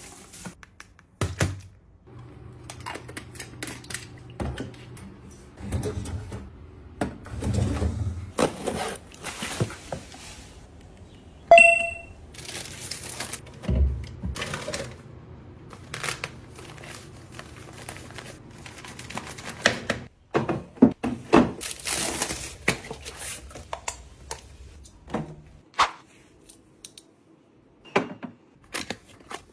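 Close-up handling of plastic toiletry bottles: a series of knocks and clicks as bottles are picked up and set down on a counter and shelf and a pump top is pressed, with some rustling of paper packing. A low steady hum runs underneath for the first two-thirds, and one sharp ringing click comes about halfway through.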